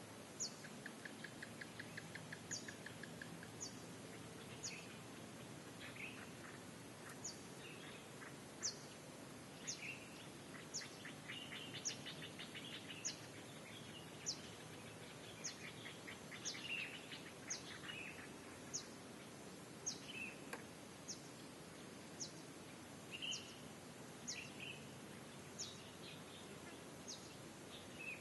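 Birds calling over a steady background hiss: a short, high downward whistle repeated about once a second, with scattered chirps and a rapid trill in the first few seconds.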